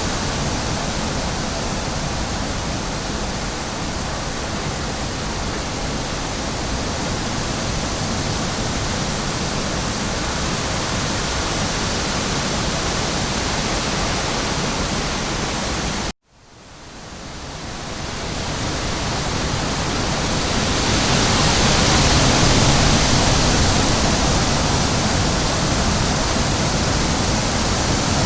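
Steady rushing noise of a nature-ambience track, like a waterfall. About sixteen seconds in it cuts out abruptly, then fades back in over a couple of seconds, as if the loop restarts.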